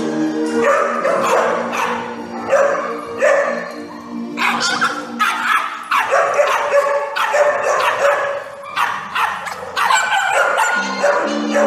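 Small dogs, Bichon Frises, barking and yipping repeatedly in play, with background music running under them.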